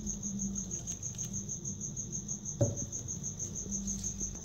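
A high, steady, rapidly pulsing insect chirp over a low hum, with a single short clunk a little past halfway.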